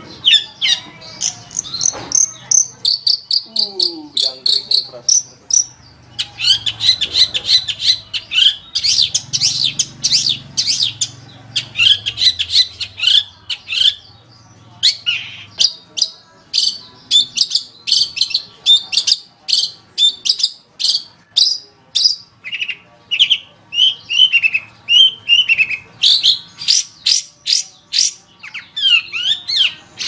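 Long-tailed shrike (cendet) singing a fast, varied song of sharp, high chirps and short whistled slurs, several notes a second, broken by brief pauses.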